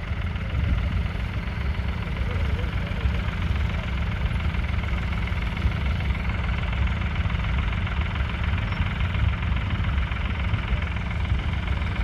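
1968 Ford 4000's 3.3-litre three-cylinder diesel engine running steadily.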